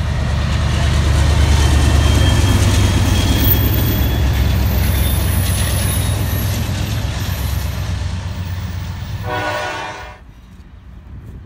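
A track geometry train passing at close range: a deep steady rumble of the diesel locomotive and rail cars rolling over the rails, loudest early on and slowly fading. Near the end a short blast of a train horn sounds, then the sound drops away abruptly.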